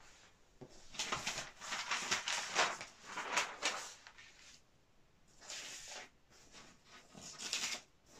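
Large sheets of paper art prints rustling and sliding against each other as they are lifted off a stack and laid down by hand: a long stretch of rustling, then two shorter ones near the end.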